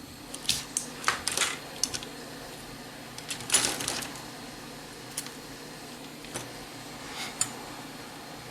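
Small hard clicks and rattles of metal repair tools being picked up and set down on the workbench while preparing to desolder a chip, over a steady low hum. The clicks cluster in the first four seconds, with a few single ones later.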